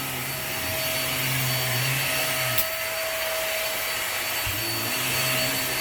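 Upright vacuum cleaner running steadily on carpet, its motor and brushroll making a constant hum and rush of air, with one brief click about halfway through.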